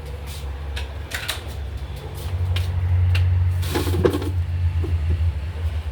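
Scattered light knocks and clatter of food and containers being taken out of a refrigerator, with a brief rustling scrape about four seconds in, over a low rumble.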